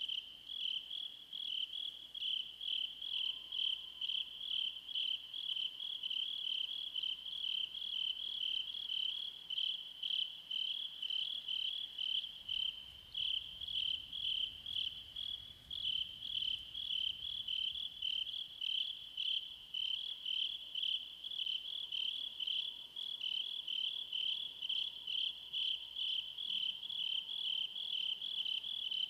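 Insects chirping: a loud, high-pitched, steady-pitched pulsing at about two pulses a second, with a few brief gaps.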